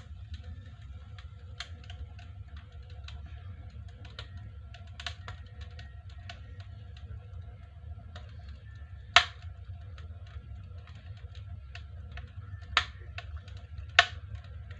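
Wood fire crackling in a Bakhta stove-fireplace: a steady low rumble of the burning with many small irregular crackles and three loud pops in the second half.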